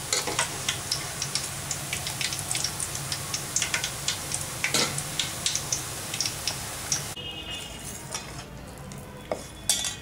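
Boondi sizzling and popping as they deep-fry in hot oil: gram-flour batter drops being fried only lightly, to be lifted out before they turn crisp. About seven seconds in the frying gives way to a quieter stretch, and near the end there is a sharp metal clink.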